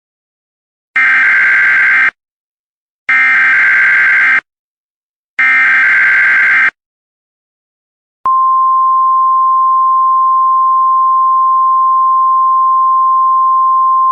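Emergency Alert System (SAME) header: three screeching digital data bursts about a second long with short gaps between them, then a steady single-pitch attention tone that starts about eight seconds in and holds.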